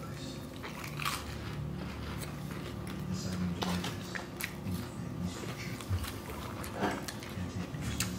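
Close-miked biting and chewing of a fried Korean mozzarella corn dog, with a few sharp crunches from its crisp fried batter.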